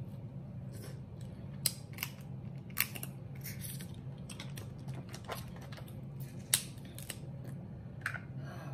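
Scattered sharp clicks and snaps of crab-leg shell being cut with kitchen scissors and picked apart by hand, with a steady low hum underneath.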